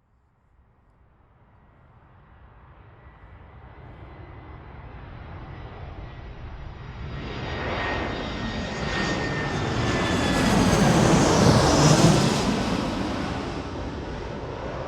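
Airplane engine passing overhead: it grows steadily louder out of silence, peaks about twelve seconds in, then begins to fade, its engine tones dropping in pitch as it goes by.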